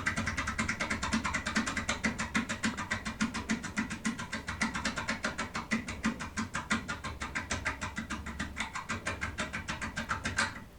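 Rapid, even metallic clicking and rattling of a foil-impression lockpick being worked hard in an MCM lock cylinder. It stops shortly before the end.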